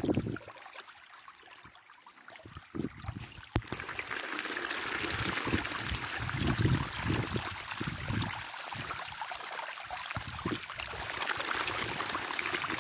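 Water running and pouring steadily. It starts with a click about three and a half seconds in, and low thumps sound through it.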